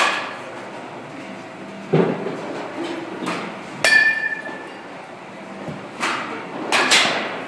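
Baseball bat hitting pitched balls: sharp knocks about every two seconds, one of them ringing briefly.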